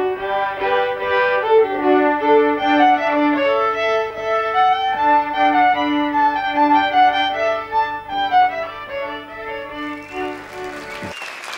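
A fiddle tune, a melody of held notes over a steady lower note, that stops abruptly near the end as applause starts.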